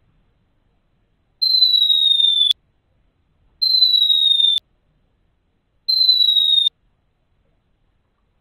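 Cartoon bomb-drop whistle sound effect, played three times: each is a high whistle about a second long, falling slightly in pitch and cut off by a sharp click.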